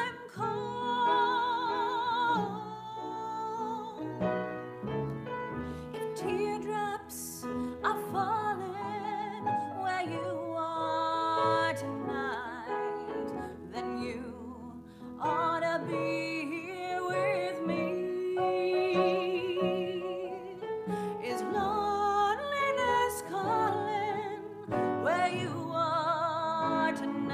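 A woman singing a slow song with strong vibrato, in phrases with short breaks between them, accompanied by grand piano.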